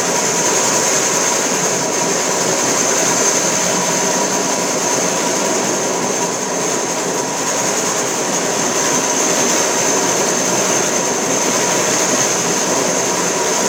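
BEF320 three-phase electric scabbler cutting into very hard concrete to take the surface down, a loud steady grinding clatter with a high whine over it, its dust-extraction vacuum running through the hose.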